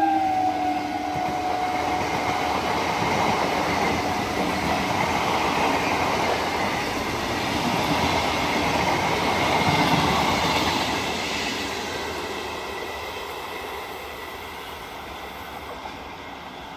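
Electric multiple-unit (EMU) local train, a BEML stainless-steel rake, passing at speed: a continuous rush of wheels on rail with some clickety-clack. It swells to its loudest about ten seconds in and then fades away. The last of a horn note dies away in the first moment.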